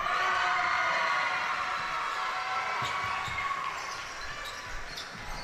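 Basketball bouncing on an indoor court during a game, with voices shouting over it for the first few seconds.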